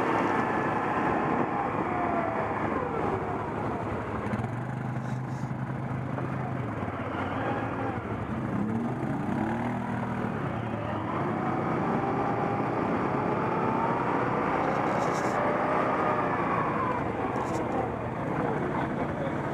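ATV engines running and revving on the trail, their pitch rising and falling with the throttle; at times more than one engine can be heard at once.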